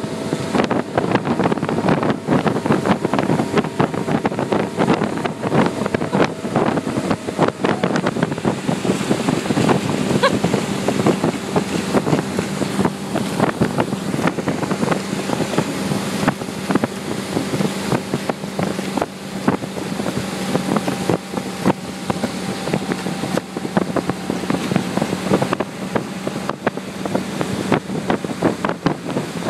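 Towing motorboat's engine running steadily at speed, holding an even pitch, with wind buffeting the microphone and the wake's water rushing behind the boat.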